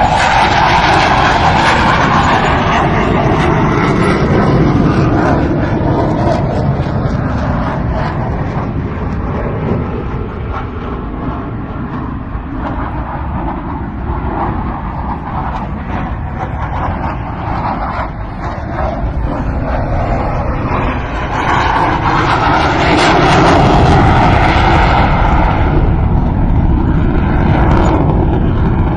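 Twin-engine F/A-18 fighter jet circling overhead: loud, continuous jet engine noise that eases off somewhat in the middle and swells again about three-quarters of the way through as the jet comes back around.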